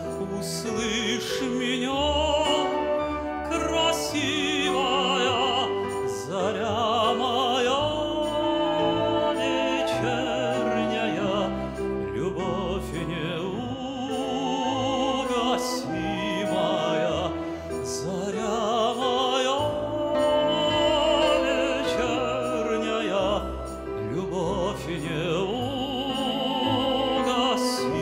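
A male singer singing in a classical, operatic style with a wide vibrato, over instrumental accompaniment.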